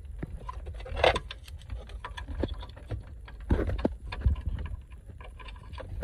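Plastic wiring-loom connectors and cable being handled and pushed into the back of a car stereo head unit: scattered clicks and knocks with short bursts of rustling.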